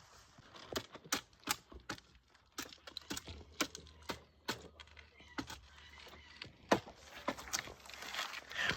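Irregular dry clicks and snaps of sticks and twigs being handled or stepped on, one to three a second, with a few louder cracks near the end.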